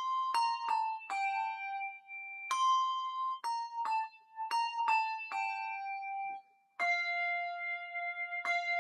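Handbells played by two ringers in a slow melody: each bell is struck with a sharp attack and left ringing so the notes overlap. There is a brief pause about six and a half seconds in, then a held chord of several bells.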